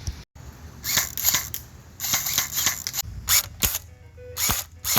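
Nerf blaster firing: a run of sharp clicks and pops in quick clusters.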